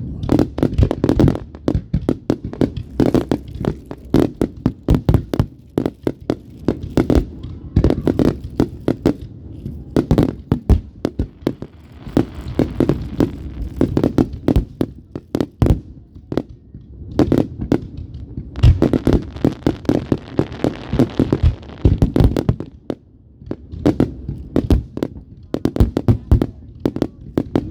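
Fireworks going off: a dense, irregular string of sharp bangs and pops, several a second, with two stretches of crackling a little under halfway through and again about two thirds of the way in.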